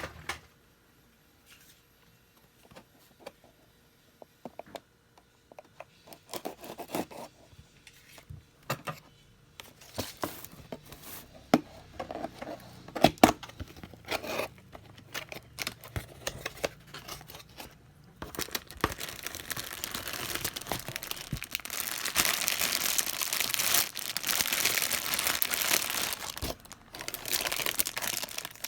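Packaging being opened by hand: scattered taps and clicks at first, then from about two-thirds of the way in a long stretch of dense crinkling and tearing.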